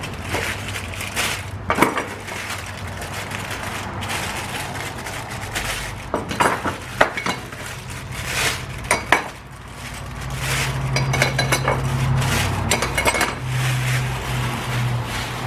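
Ceiling fan parts and hardware being unpacked and set down: a series of clinks and knocks, with a low hum coming in about two-thirds of the way through.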